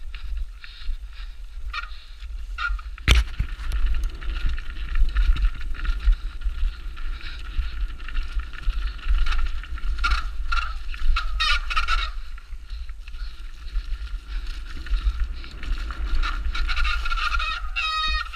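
Downhill mountain bike (Specialized Demo 8) running down a rough trail. Steady rumble of tyres and wind, constant chain and frame rattling, and a sharp knock about three seconds in. A pitched squeal comes near the end.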